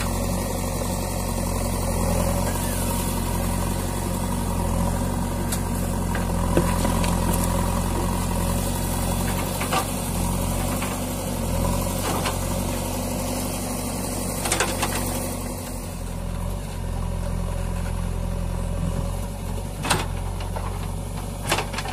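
JCB 3DX backhoe loader's diesel engine running steadily under hydraulic load as it digs and moves earth, with a few short sharp knocks scattered through.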